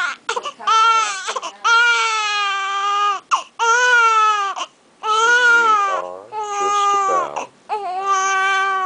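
Three-day-old newborn baby crying hard: a string of about six long, loud wails, each a second or more, with short breaks for breath between them.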